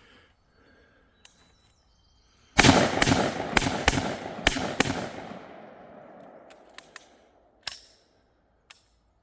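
A rapid string of about six gunshots fired in roughly two seconds, with echo trailing off for a couple of seconds after the last one. A single fainter crack follows near the end.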